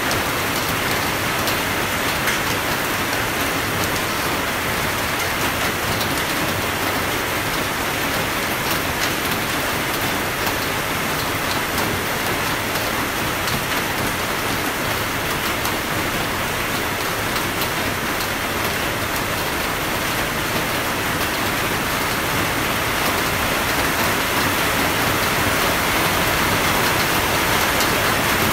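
Steady rainfall: an even hiss with faint ticking of individual drops, with no thunder.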